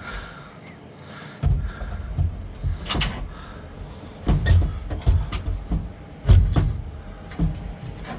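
A series of sharp knocks and thuds, about five over several seconds, over a low rumble that starts about a second and a half in: parts being handled and bumped against the car's dash and steering column during fitting.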